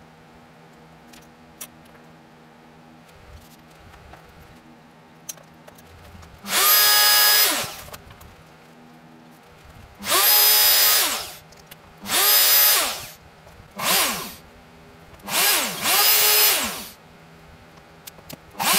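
Compact trim router switched on in five short bursts after a few seconds of quiet handling clicks. Each burst rises quickly to a loud, high, steady whine and then falls in pitch as the motor coasts down. The router is being used freehand to rout a cavity in a wooden guitar body.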